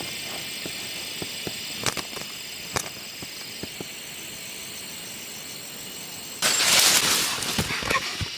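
Steady high drone of insects with a few sharp clicks, then about six and a half seconds in a loud burst of rustling noise lasting about a second and a half.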